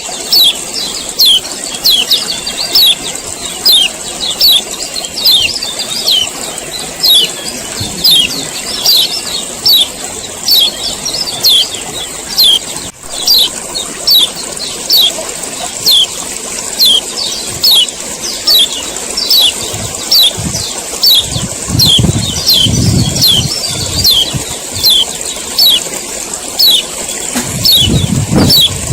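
Male kecial kuning (a white-eye) giving its sharp 'ciak' call over and over, short downward-sweeping chirps at an even pace of about one and a half to two a second, over a steady high hiss. A low rumble comes in about two-thirds of the way through and again near the end.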